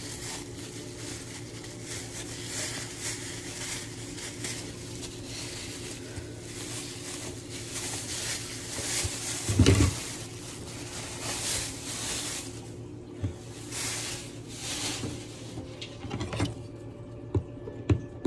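Rustling and scraping of fabric against the phone's microphone, in irregular bursts over a steady low hum, with one heavy bump about ten seconds in.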